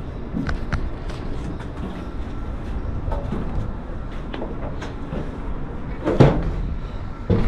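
Footsteps and scattered knocks on the plate aluminium deck of a boat, with two louder clunks about six seconds in and near the end, over a steady low rumble.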